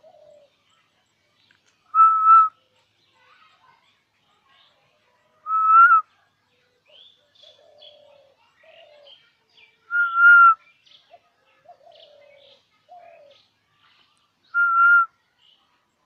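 Loud whistled note at one steady pitch, lifting slightly at the end, about half a second long and repeated four times roughly four seconds apart.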